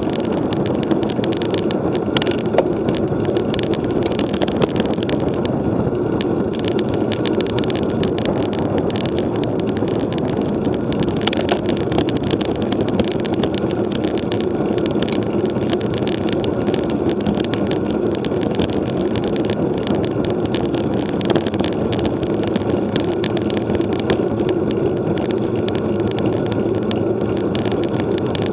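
Road bike being ridden at speed: steady wind rush and tyre noise, with a constant scatter of small clicks and rattles.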